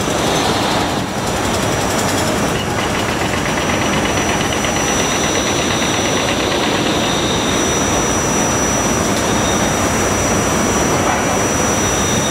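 Steady engine drone with a constant high-pitched whine over it, unbroken throughout.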